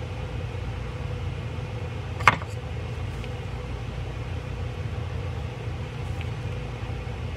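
Steady low background hum with a single sharp click about two seconds in, a small metal tap from the screwdriver and screw being handled.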